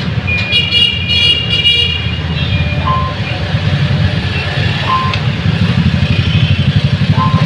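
A motor vehicle engine idling close by, a steady low rumble, with a short beep repeating about every two seconds.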